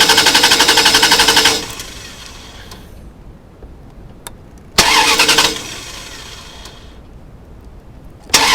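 Dodge 5.9 L V8 turning over on the starter motor in bursts with an even pulsing rhythm but not catching. The first burst stops about a second and a half in, a short one comes around the middle and another begins near the end. It is a crank-no-start, which the mechanic puts down to a bad ignition coil.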